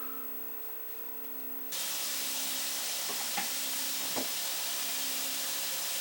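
A faint low hum, then a steady hiss that starts suddenly about two seconds in and holds evenly, with a couple of faint knocks.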